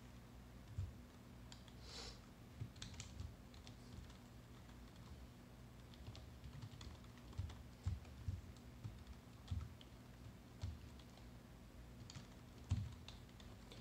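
Typing on a computer keyboard: irregular, scattered key presses with soft thumps, over a faint steady low hum.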